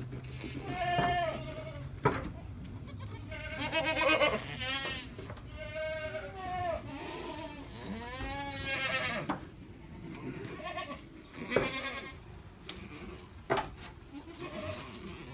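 Alpine goat doe in labour bleating repeatedly: a string of drawn-out calls that rise and fall in pitch, the longest near the middle, with a few sharp clicks between them.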